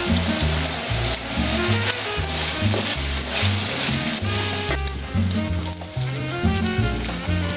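Food sizzling as it fries in a pan, under background music with a stepping bass line.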